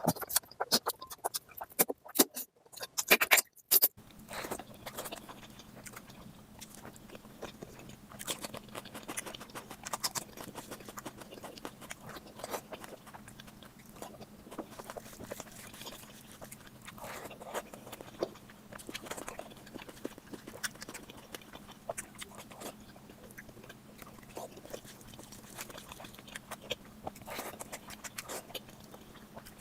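Close-up eating sounds: wet chewing and lip-smacking on rice and mutton curry, a string of short smacks and clicks. They are loud for the first few seconds, then quieter over a steady low hum.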